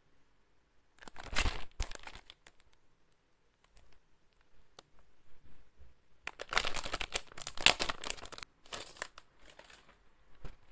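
Plastic packaging crinkling and crackling as it is handled, in a short burst about a second in and a longer one from about six to nine seconds in.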